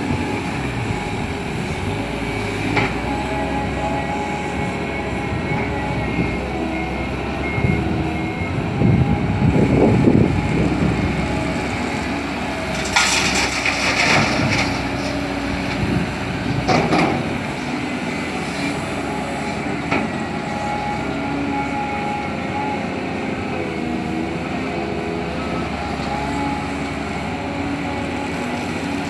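Heavy diesel machinery working steadily: the CAT 320D excavator's six-cylinder diesel engine and hydraulics running under load. A louder rumbling swell comes about ten seconds in, and short hisses follow a few seconds later.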